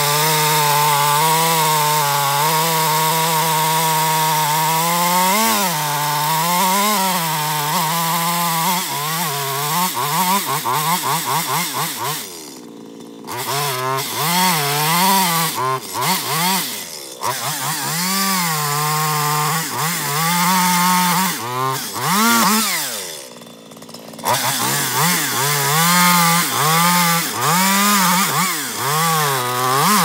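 Two-stroke chainsaw cutting into the base of a tree trunk at high throttle, its note wavering down and up as the chain loads and frees in the wood. The throttle is let off twice, about a third and two-thirds of the way through, and the engine drops toward idle before revving back up.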